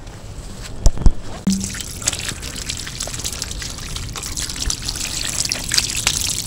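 Two sharp knocks as palmyra palm fruits are set down on a concrete slab, then water running from a hose and splashing over a palm fruit rubbed in the hands and onto the concrete.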